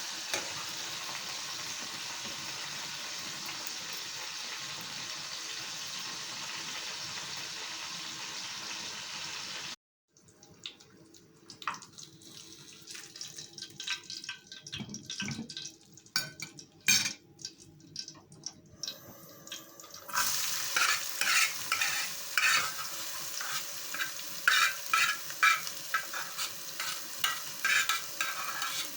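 Food frying in a pan with a steady sizzle. It cuts off suddenly about ten seconds in, followed by scattered clicks and knocks. About twenty seconds in, louder sizzling returns with a utensil stirring and clacking against the pan.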